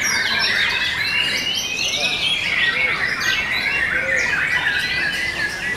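White-rumped shamas singing at a contest: a continuous, dense mix of rapid whistles, chirps and sliding notes, with several birds' songs overlapping.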